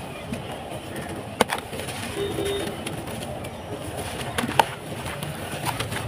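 Dry, dusty sand-cement crumbled and sifted through bare hands: a steady gritty rustle of falling grains and clumps, with two sharp clicks, about a second and a half in and again about three seconds later.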